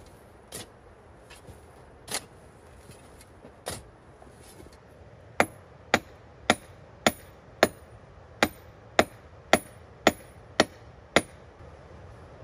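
A few scattered light knocks, then, about five seconds in, eleven sharp hand-hammer blows in a steady rhythm of about two a second.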